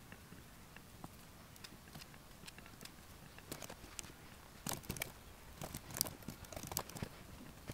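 Laptop keyboard typing: light key clicks, sparse at first, then quick runs of keystrokes about five to seven seconds in.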